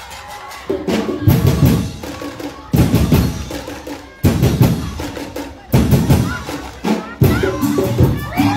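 Festival street-dance percussion music: drums and wooden knocking strikes played in loud groups that come about every second and a half, after a quieter first second.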